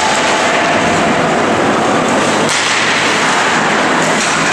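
Ice hockey in play: a loud, steady wash of skates scraping the ice and arena noise, with a sharp crack about two and a half seconds in.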